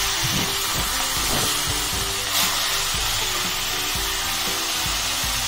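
Pieces of katla fish frying in hot mustard oil in a kadai, giving a loud, steady sizzle.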